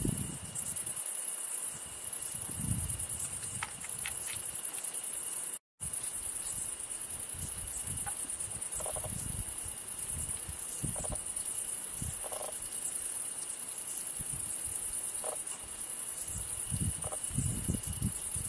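Crickets chirring steadily in the background, with the close-up smacking and chewing of two hedgehogs eating wet pet food from a dish. The sound drops out for a moment near six seconds in.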